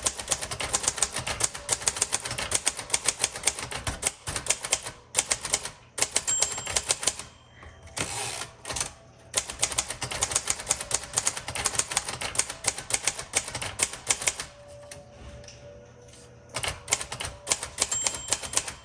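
1957 Royal Quiet Deluxe manual typewriter being typed on fast: rapid runs of typebar strikes with short pauses between. A short bell ding sounds twice, once near the middle and once near the end, as the carriage nears the right margin.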